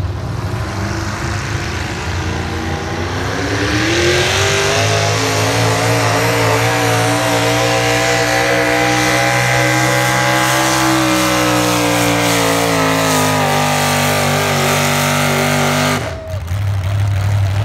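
Pulling pickup truck's engine at full throttle dragging a weight-transfer sled. The revs climb over the first few seconds and hold high, then sag slowly as the sled loads the engine down, and drop off suddenly near the end when the pull stops.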